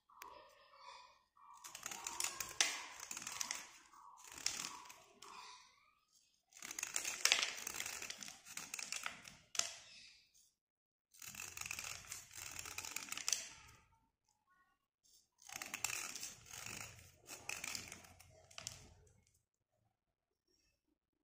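A slate pencil being scraped by hand, a dry scratchy rasping in four bursts of a few seconds each with short pauses between.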